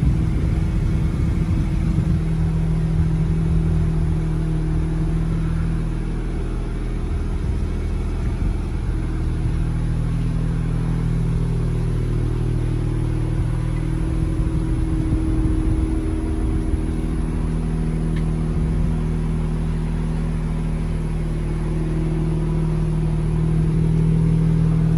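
An engine idling steadily, a low even hum that weakens somewhat in the middle and comes back stronger near the end.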